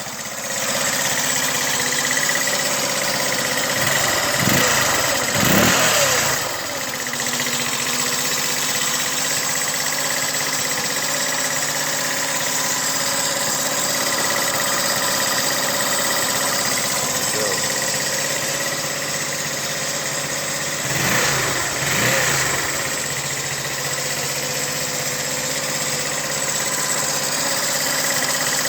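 GY6 150cc four-stroke scooter engine idling steadily, running again after its seized piston and rings were found and the engine was fixed. Twice, about five seconds in and again about 21 seconds in, it briefly rises and falls in pitch, like a short blip of the throttle.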